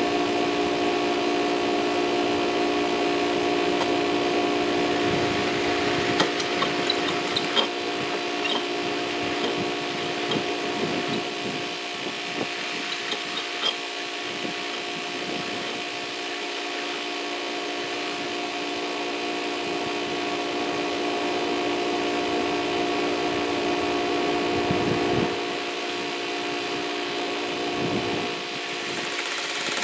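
Electric masonry drill running steadily under load, its bit grinding into brick, with a constant motor hum and a few sharp ticks of grit.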